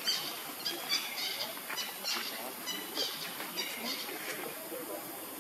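Short, high-pitched animal chirps repeating several times a second over a steady outdoor hiss.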